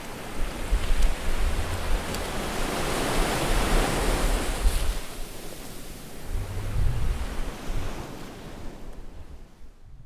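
Ocean surf: waves washing in with a low rumble, one wave building and breaking about three seconds in and another smaller surge near seven seconds, then fading out near the end.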